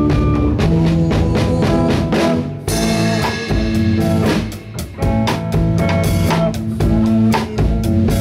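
A small rock band playing live: electric guitar and electric bass over a drum kit keeping a steady beat, with a cymbal crash about three seconds in.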